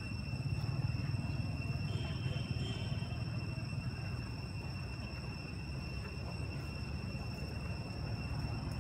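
Steady outdoor ambience: a constant high-pitched insect drone over a low, steady rumble, with no monkey calls.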